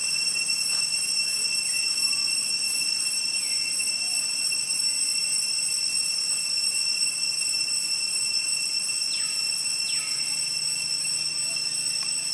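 Steady high-pitched insect drone in forest: one whining tone with its overtones, held without a break. A few faint, short falling calls sound over it now and then, two of them near the end.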